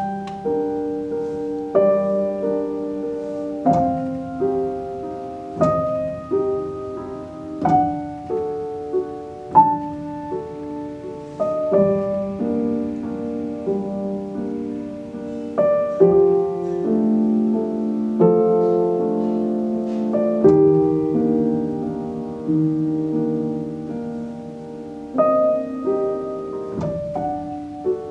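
Grand piano playing a slow solo piece: chords struck about every two seconds and left to ring, with a melody moving over them.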